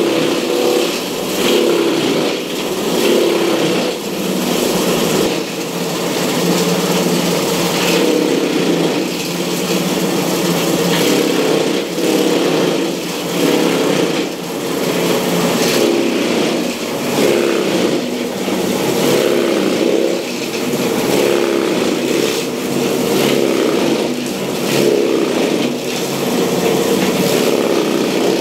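Belt-driven chaff cutter running steadily as straw is fed through it, its blades chopping the straw and blowing it out of the spout. The level rises and dips every second or two.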